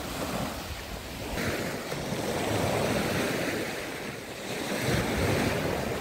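Small Black Sea waves breaking and washing up onto the beach, the surf swelling and ebbing twice.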